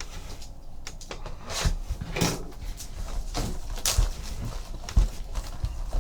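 Sealed trading-card boxes being handled and unwrapped: irregular plastic crinkling and rustling with a few light knocks of cardboard on the table.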